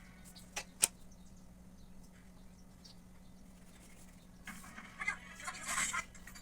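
Paper and cardboard being handled during craft work: two sharp clicks about a second in, then a burst of crinkling, rustling noise near the end, over a faint steady hum.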